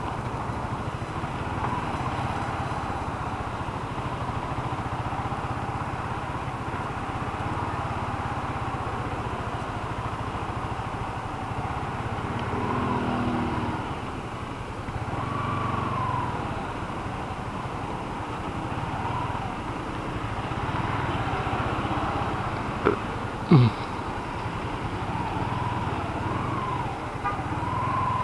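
Yamaha Sniper 155's single-cylinder engine running as the motorcycle is ridden, with steady road noise. Two brief thumps about 23 seconds in.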